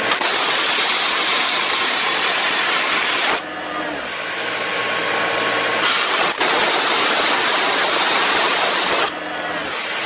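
Compressed air blasting out of the opened ball-valve air outlet of a Doosan C185 towable air compressor, a loud rushing hiss, cut off about a third of the way through, turned on again past halfway and cut off near the end. Underneath, the compressor's Kubota diesel engine runs steadily.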